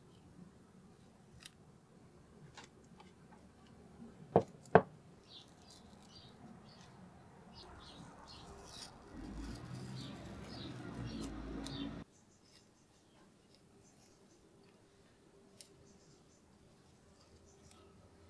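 Tape being wrapped and pressed by hand onto small metal vise parts: faint crinkling and rubbing, two sharp clicks about half a second apart a little over four seconds in, and a louder rustling stretch from about eight seconds in that stops abruptly at twelve seconds.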